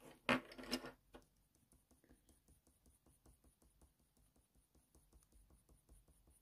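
Faber-Castell Polychromos colour pencil scratching on hot-press watercolour paper in quick, short, evenly repeated strokes, pressed fairly hard. A brief louder rustle of hand and pencil handling comes in the first second.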